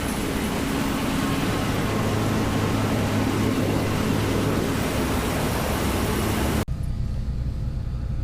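Combine harvester running loud and steady at close range, cutting off abruptly about six and a half seconds in. It gives way to a duller, steadier machine hum as heard from inside the cab.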